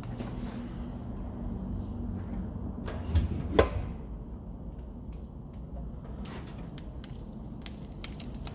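Door of a TMF Viziera wood-burning fireplace being opened: two knocks of the latch about three seconds in, the second with a short rising squeak. Faint crackling clicks follow over a steady low hum.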